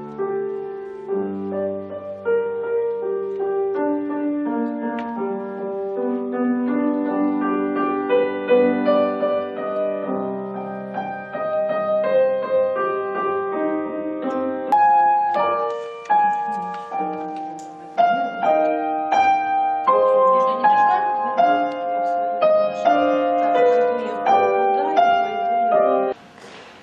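Grand piano being played, a melodic piece with a steady stream of notes over lower chords, cutting off abruptly near the end.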